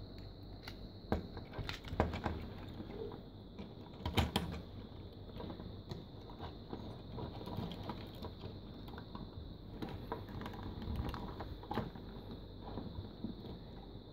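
Plastic clicks and knocks from a bootleg Transformers Cybertron Optimus Prime action figure as its legs, feet and arms are moved and set by hand. The clicks are irregular, with the sharpest ones in the first few seconds.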